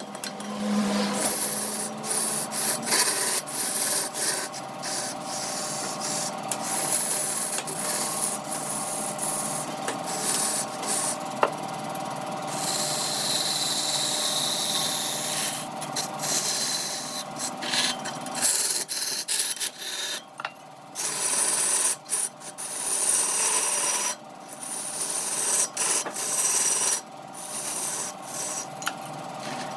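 A turning tool scraping and cutting a piece of wood as it spins on a wood lathe, over a steady hum. The cutting runs in long stretches broken by several short gaps, more of them in the second half, as the tool comes off the wood.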